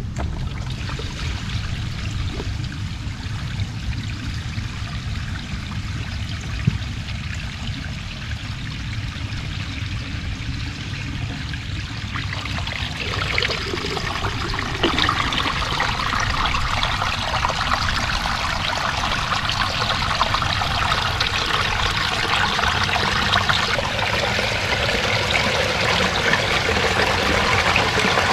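Water arriving down a newly built pond waterfall stream on its first run: a trickle at first, then from about halfway through a growing, steady flow splashing over the rocks and pouring into the pond.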